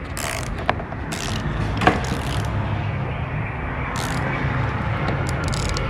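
Tools working a bolt loose through a wobble extension: several short scraping bursts and a sharp click about two seconds in, over a steady low hum.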